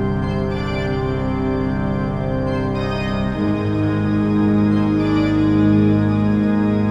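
Background organ music: sustained held chords, moving to a new chord about halfway through.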